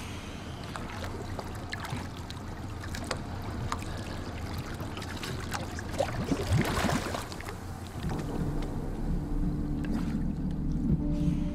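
Water sloshing and splashing at the surface around a scuba diver, louder splashing and bubbling about six seconds in as he goes under. About eight seconds in, a steady low hum begins.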